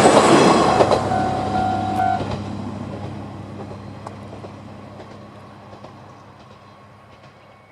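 A Kiha 2400-series diesel railcar moving away past a level crossing, its rumble and engine drone fading steadily. The crossing's electronic warning bell keeps ringing in a repeating tone for about two seconds, then stops as the warning ends.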